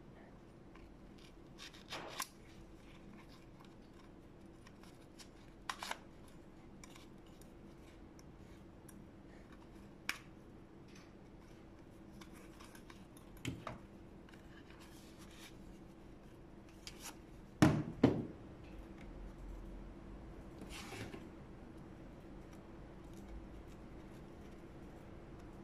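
Black nylon holster being handled and worked with a pair of scissors: scattered sharp clicks and snips with soft fabric rustling between. The loudest is a close pair of clicks about two-thirds of the way through, over a faint steady hum.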